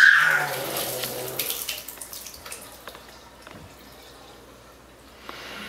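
Water from a bathtub faucet splashing as a child plays under it, opening with a child's high squeal that rises and falls; the splashing dies down through the middle and picks up again near the end.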